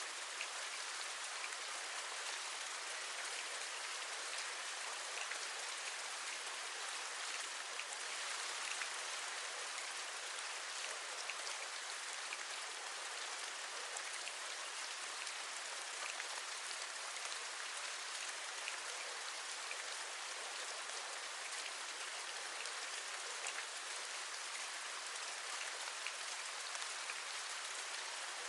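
Steady rain: an even hiss with many small raindrop ticks pattering through it.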